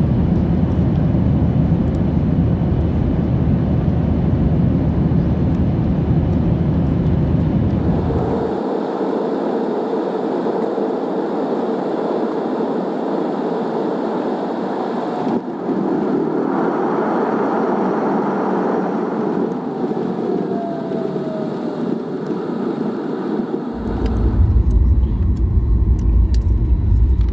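Jet airliner cabin noise: steady engine and airflow roar. A faint falling whine comes about two-thirds through. Near the end a heavy low rumble sets in and the sound grows louder as the airliner rolls on the runway after touchdown with its spoilers deployed.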